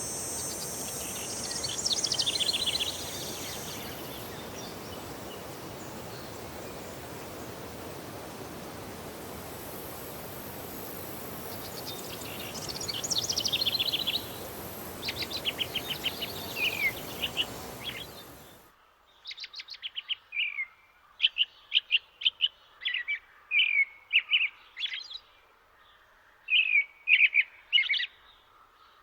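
Songbirds singing in short, repeated chirping phrases. For the first two-thirds they sit over a steady rushing background noise, which cuts off abruptly. After that the song phrases come every second or so over a quiet background.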